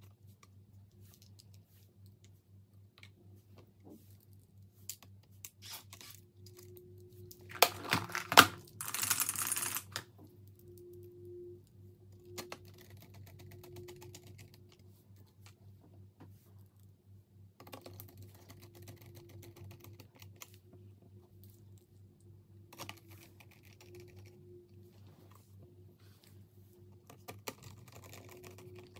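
Small clicks and taps of plastic and metal laptop parts and a screwdriver being handled as the cooling vents are fitted back into an opened laptop. About eight seconds in there is a louder clatter, then a loud hiss lasting about a second.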